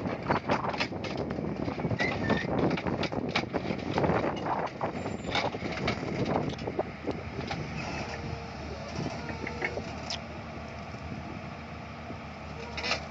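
Heavy diesel engine idling steadily, with many short clicks and crackles over it, most of them in the first half.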